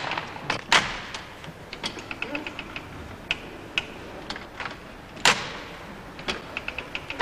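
A model of Thimonnier's early chain-stitch sewing machine being worked, its mechanism clicking and clattering in runs of quick ticks. Two louder knocks come about a second in and about five seconds in. The machine stitches only fitfully.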